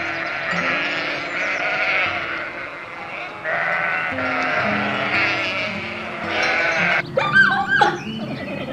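A large flock of sheep bleating, many calls overlapping into a continuous chorus. About seven seconds in, the flock stops and short calls that rise and fall in pitch take over.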